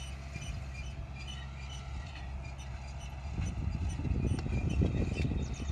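MR70 tractor's diesel engine running steadily, growing louder and rougher a little past halfway, with faint high ticks over it.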